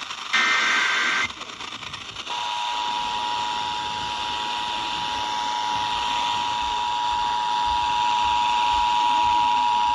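Emergency Alert System tones received over the radio with hiss. The last buzzy, roughly one-second burst of the digital SAME header ends about a second in. After a short gap, the steady two-tone EAS attention signal (853 and 960 Hz sounded together) starts about two seconds in and holds, announcing that a new warning message follows.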